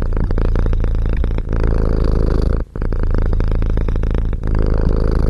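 Domestic cat purring loudly and close up, a rapid pulsing rumble that breaks off briefly with each breath, about every one to two seconds.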